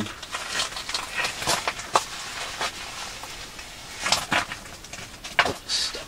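A person crouch-walking over the rocky floor of a stone-lined tunnel: irregular scuffs, crunches and scrapes, with a few sharper knocks.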